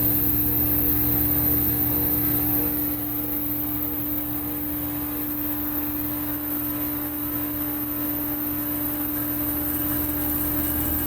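Bryant heat pump outdoor unit running: a steady hum with a low rumble under it, easing slightly about three seconds in. The unit is tripping off on its low-pressure switch, which the technician takes for low refrigerant from a leak.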